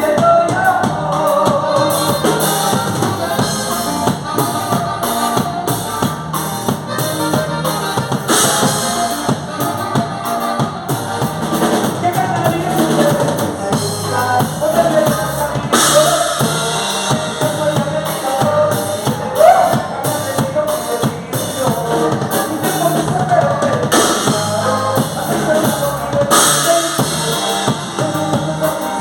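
Instrumental break of a band's dance song, with no vocals. A drum kit of bass drum and snare keeps a steady beat under melody instruments, with a cymbal crash every several seconds.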